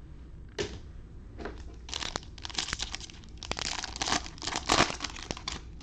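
Foil wrapper of a trading card pack being torn open and crinkled: a run of crackly rustles and tears.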